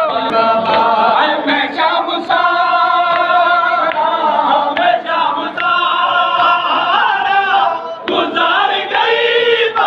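A crowd of men singing a noha, the Shia mourning lament, in unison with a lead reciter, with sharp hand slaps of chest-beating (matam) mixed in.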